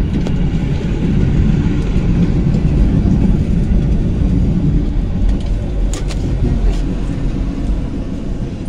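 Interior noise of a moving Iveco public-transport vehicle: a steady low rumble from the running gear and motor, a little louder in the first half. A few sharp clicks or rattles come about six seconds in.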